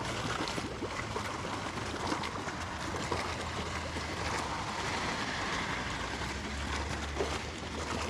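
Water lapping and gurgling around a boat, over a low steady motor hum.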